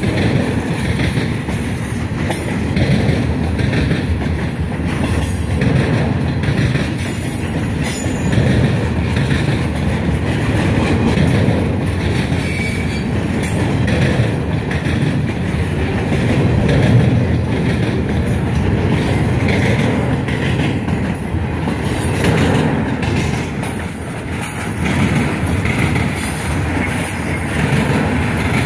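Freight train cars rolling slowly past: steel wheels rumbling and clacking over the rail joints as tank cars give way to flatcars loaded with long welded rail.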